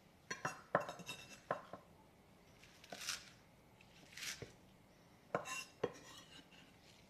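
Kitchen knife chopping garlic chives on a wooden cutting board: a run of sharp knocks in the first two seconds and a few more near the end, with two brief swishes in between.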